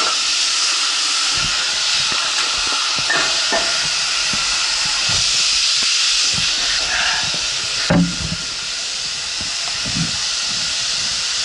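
Steady hiss of compressed air from a firefighter's breathing apparatus, fed to a kitten overcome by smoke to revive it. A few short knocks of handling debris about eight and ten seconds in.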